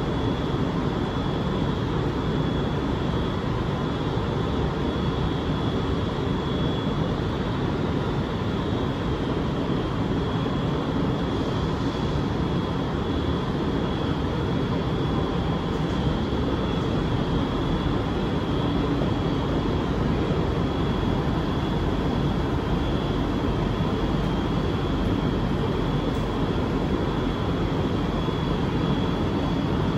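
Steady hum of a powered-up Kelana Jaya Line LRT train standing still at the platform, with a thin steady high-pitched whine over it.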